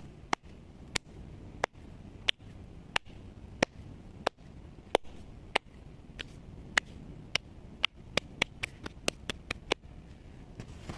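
Hands patting flour tortilla dough, a series of sharp slaps like claps at about one every two-thirds of a second that quicken near the end and stop about ten seconds in.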